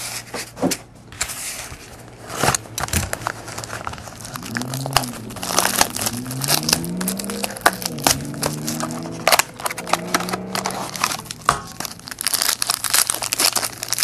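Trading-card pack wrappers crinkling and tearing as they are opened by hand, with dense, irregular crackles throughout.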